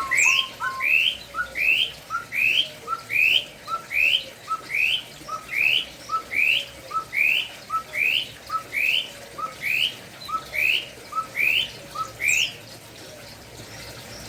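Kopi-kopi (cucak kopi) bird calling: a long, evenly paced series of about twenty sharp, rising whistled notes, each led by a short lower note, which stops about twelve and a half seconds in.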